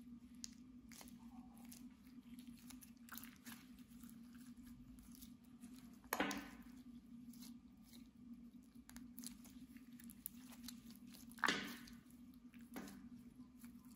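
Clear slime squeezed and kneaded by hand: soft sticky clicks and crackles throughout, with two louder squelching pops, one about halfway through and one near the end. A steady low hum sits underneath.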